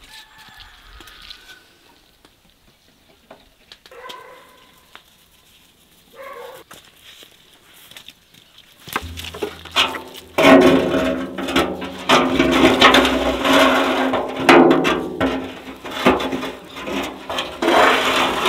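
Metal wire rack loaded with chickens being lowered into a steel barrel, scraping and knocking against the drum, which rings. It is quiet at first and becomes loud and continuous from about halfway through.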